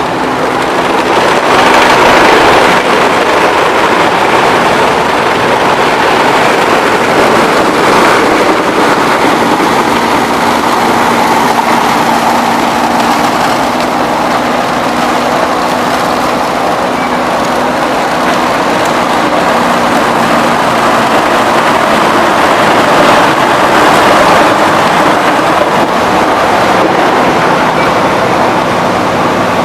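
Sugarcane crushing mill machinery running steadily and loudly, a dense mechanical noise with a constant low hum underneath.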